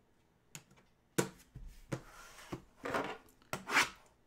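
A cardboard trading-card box handled on a wooden tabletop: a faint click, then several sharp knocks and taps as it is set down and moved, the first one, about a second in, the loudest, with brief scraping and rustling between them.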